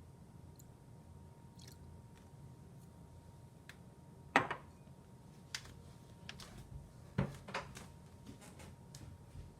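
Slime ingredients and containers being handled and mixed by hand: a scattering of short clicks and squishes, the loudest about four seconds in and another just after seven seconds.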